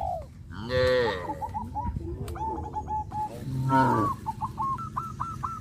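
A cow mooing, one call about a second in and a shorter one near four seconds. A bird calls behind it in a fast, even series of short notes.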